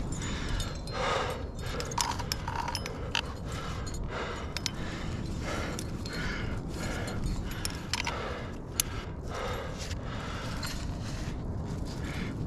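A climber breathing hard, in swells about once a second, while metal trad gear and carabiners on the harness clink sharply and now and then scrape on the granite.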